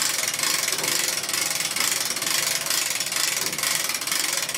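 Hand-crank winch ratcheting steadily as it hoists a javelina carcass: a fast, even run of clicks from the winch's pawl.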